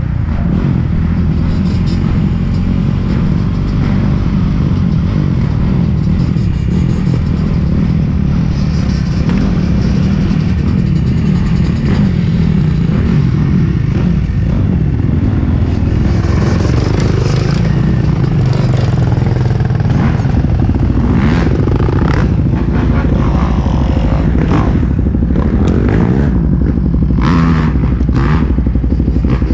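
ATV engine running steadily, close to the microphone. A scatter of clicks and knocks comes through in the last several seconds.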